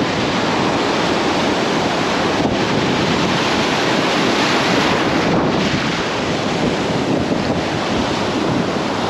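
Ocean surf breaking and washing around at water level, with steady wind noise on the microphone. A wave breaks and foams past about four seconds in.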